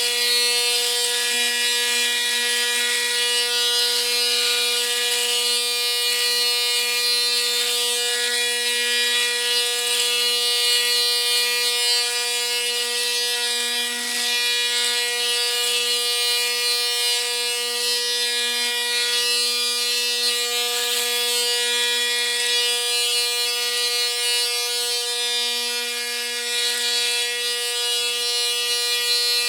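Panasonic Arc 5 electric foil shaver running and shaving: a steady high buzz with an irregular crackle as the blades cut through stubble.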